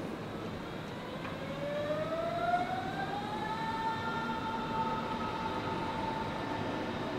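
Berlin S-Bahn class 480 electric multiple unit pulling away: its traction drive gives a whine that rises in pitch from about a second and a half in, then levels off and holds steady over a low rumble.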